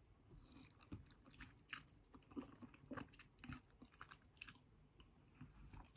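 Faint wet chewing of a mouthful of spaghetti, with soft lip smacks and short mouth clicks coming irregularly, several a second at times.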